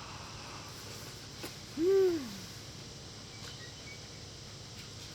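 A short hummed 'mmm' of enjoyment from a person eating broccoli, about two seconds in, its pitch rising briefly and then sliding down. A small click comes just before it.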